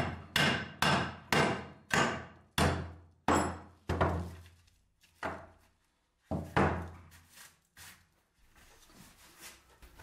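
Hammer striking repeatedly on a workpiece, a dozen or so sharp blows, each ringing briefly. The blows come about two a second at first, then slower and fainter after a short pause.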